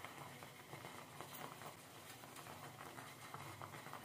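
Thick sweet pongal simmering in a pot: soft, irregular small pops and plops from bubbles bursting in the rice and jaggery mixture, over a faint low hum.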